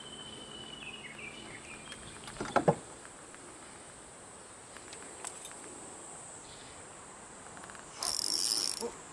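Steady high insect buzz across the reservoir. A couple of sharp knocks come about two and a half seconds in, and a short, louder high-pitched buzz comes near the end.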